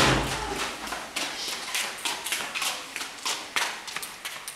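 Footsteps on a hard floor, about three steps a second, with a low thud right at the start.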